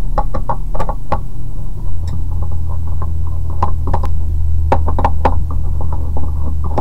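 Phillips screwdriver undoing the small screws of an Intel NUC mini PC's bottom panel: a string of small irregular clicks and taps of metal and plastic, over a steady low hum that gets stronger about two seconds in.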